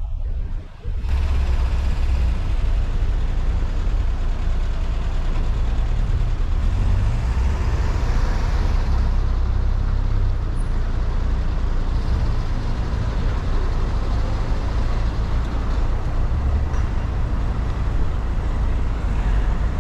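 A car driving on city streets: a steady low rumble from the engine and tyres with road noise, swelling briefly in hiss around eight to nine seconds in.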